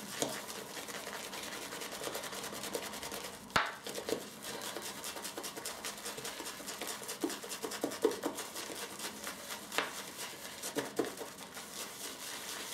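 Shaving brush swirled rapidly over a tub of hard Haslinger sage shaving soap, loading the bristles with soap: a steady scratchy brushing with a few sharper clicks.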